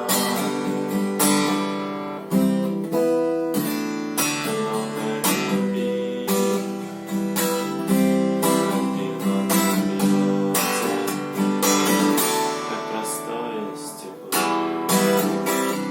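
Acoustic guitar strummed in a steady rhythm, playing a chord progression, with a few harder accented strokes.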